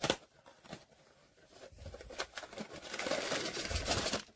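A blind box's packaging being handled and opened: a sharp click and a few light taps, then crinkling and tearing of the wrapper from about three seconds in.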